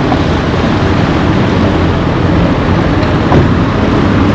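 Road traffic at close range: vehicle engines running steadily with tyre and road noise, loud and continuous.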